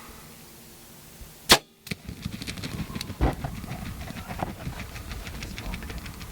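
A bow shot: one sharp crack about a second and a half in, then a spell of rapid flapping and scuffling as the arrowed wild turkey struggles to get away.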